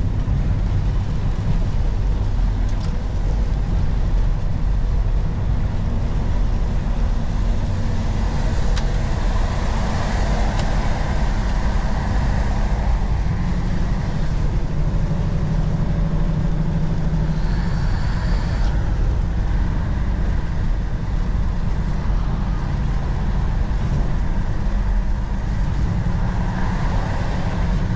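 Semi truck's diesel engine running steadily under way, with road and tyre noise. A short high-pitched sound comes about two-thirds of the way through.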